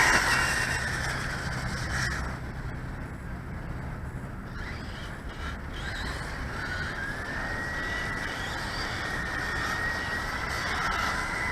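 Electric radio-controlled car's motor whining as it drives. The whine is loud at first and fades over about two seconds, then a slightly rising whine comes back from about seven seconds in and grows louder toward the end.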